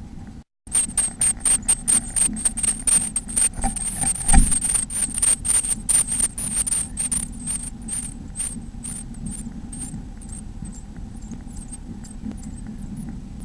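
Chicks in a nest box calling in a fast series of high-pitched cheeps, mixed with rapid scuffling knocks against the box, starting about a second in and thinning out over the last few seconds. A steady faint hum runs underneath.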